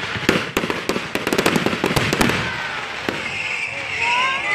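Aerial fireworks bursting: a few separate bangs, then a rapid string of crackling reports from about one to two seconds in, and one more bang near three seconds.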